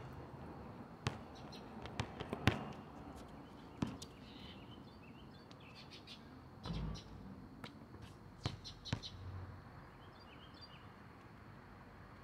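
A basketball being shot and bouncing on an outdoor court: a dozen or so separate sharp knocks off the rim, backboard and ground, spaced irregularly, with a few dull low thuds. Faint high chirps come in twice.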